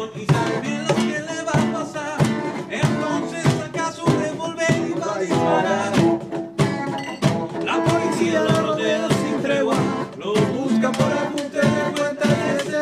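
Acoustic guitar strummed with a cajón beaten by hand, keeping a steady beat: a live instrumental passage before the singing comes in.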